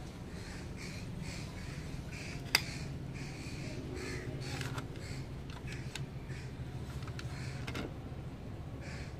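A bird calling repeatedly in short calls at irregular intervals, over a low steady hum. About two and a half seconds in there is a single sharp click, the loudest sound, from the diecast model car being handled.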